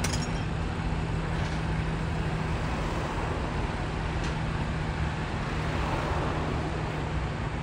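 Car-transporter truck's diesel engine running steadily at idle, a constant hum. A few light clicks break in near the start and about four seconds in.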